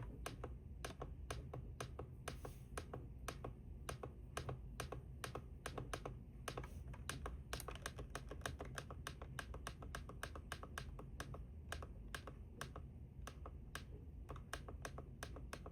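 Faint, quick plastic clicks of a weather radio's buttons being pressed over and over, several a second at an uneven pace, while the channel is being selected; a low hum underneath.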